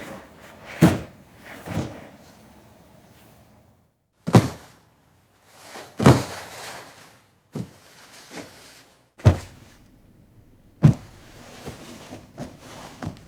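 A series of irregular thuds and knocks: about eight heavier ones spaced a second or two apart, then a cluster of lighter knocks near the end.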